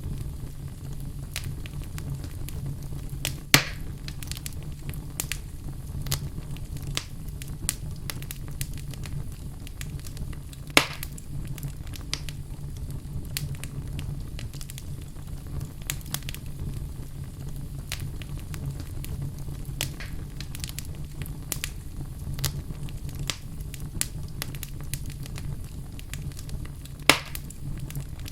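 Wood fire burning in a fireplace: a steady low rumble of flames with constant small crackles and three louder sharp pops.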